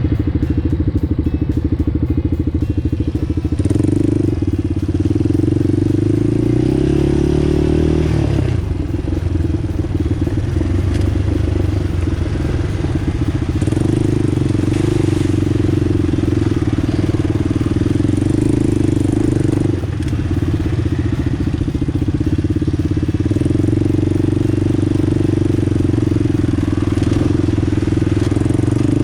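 ATV engine running continuously on the move. Its pitch climbs as it revs about six to eight seconds in, then drops back and holds steady.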